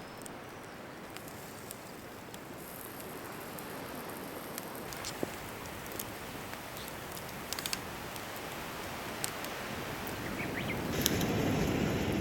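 Campfire crackling: a steady hiss with scattered sharp pops, and a gust of wind on the microphone swelling near the end.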